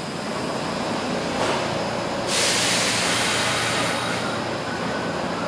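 Subway train heard through the underground station: a steady rumble and hiss, with a louder rush of hiss from about two to four seconds in.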